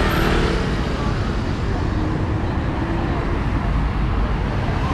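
City street traffic: a steady rumble of passing cars and buses, with faint voices of passers-by.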